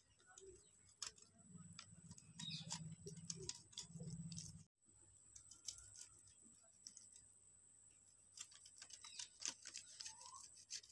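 Faint scraping and scattered light ticks of a boiled egg being rubbed across a stainless-steel box grater.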